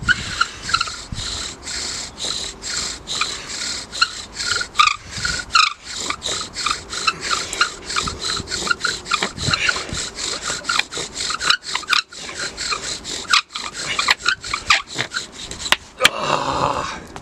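Bow drill in use: a wooden spindle spun fast by a bow in the notch of a wooden hearth board, each back-and-forth stroke a rasping, squeaking rub of wood on wood, about three to four strokes a second, as it grinds out hot dust to form an ember. The strokes stop about a second before the end.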